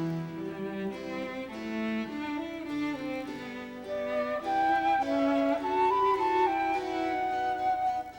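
Background music: a melody on bowed strings such as violin over lower sustained notes.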